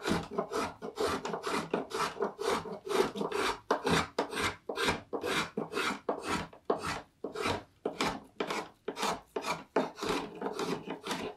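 A two-handled shave cutting shavings from a green black walnut bowl blank in quick rasping strokes, about two a second.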